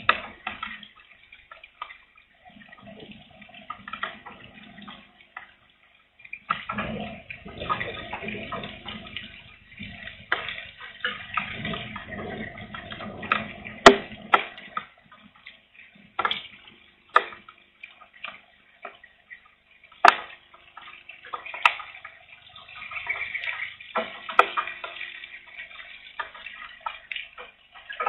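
Strong wind in gusts with light rain: a rushing noise that swells and dies away every few seconds, broken by scattered sharp ticks of drops landing close by.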